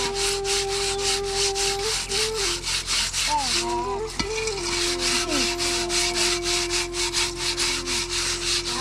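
Rhythmic scraping, about four strokes a second and steady throughout. Long held tones that shift pitch now and then run over it.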